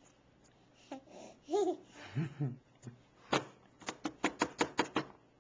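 Brief vocal sounds about a second in, then a run of laughter near the end: about eight short, quick bursts.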